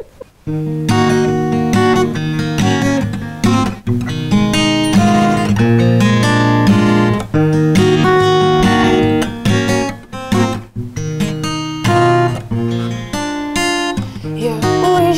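Acoustic guitar played solo: strummed and picked chords that change every second or so, starting about a second in.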